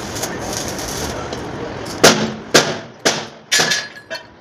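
Four sharp metal strikes about half a second apart, each ringing briefly, with a weaker one after: hammer blows on metal. A steady noisy hum runs underneath before the blows begin.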